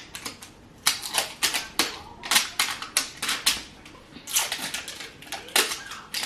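Clear plastic wrapping of an L.O.L. Surprise toy being crinkled and torn open by hand: a run of sharp, irregular crackles.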